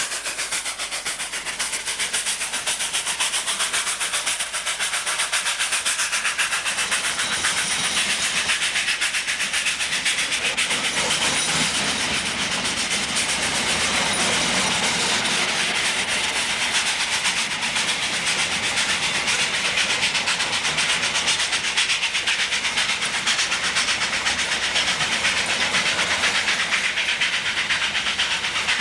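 South African Railways class 25NC 4-8-4 non-condensing steam locomotive working hard up a steep grade with a heavy grain train: a fast, steady stream of exhaust beats and hissing steam, with wheels clattering over the rail joints. It grows louder over the first several seconds, then holds steady.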